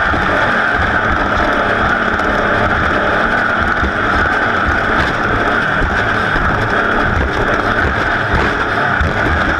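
Race vehicle's engine running hard and steady, with wind buffeting the microphone.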